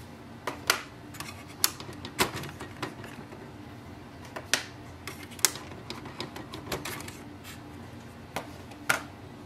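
Ink cartridges being unlatched and pulled out of an Epson WorkForce WF-2850 printer's print head carriage: sharp plastic clicks and taps, about ten, spaced irregularly.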